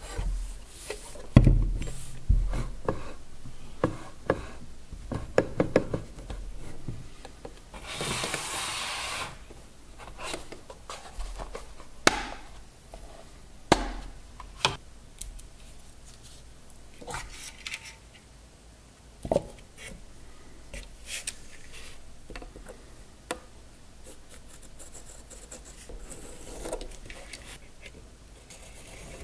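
Workbench handling noises: a run of clicks, taps and knocks as a motor unit, tools and parts are handled and set down. A heavy thump about a second and a half in is the loudest, and there is a rustling scrape of about a second some eight seconds in.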